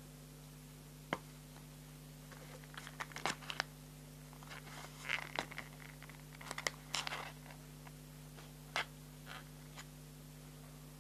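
A clear plastic pouch of mini markers being handled: scattered crinkling and sharp clicks, busiest in the middle, with a few single taps near the start and near the end.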